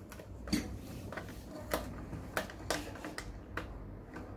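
Irregular sharp clicks and light knocks of hands fitting a metal suction arm into its flange on the top of an extraoral suction unit's cabinet, about five in all.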